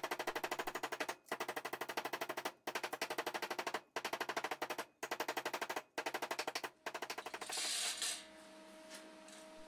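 Hammer tapping a thin aluminium strip over a small steel anvil to bend it into a curve: quick, even taps, about ten a second, in runs of a second or so with brief pauses. The tapping stops about seven and a half seconds in, followed by a brief soft hiss.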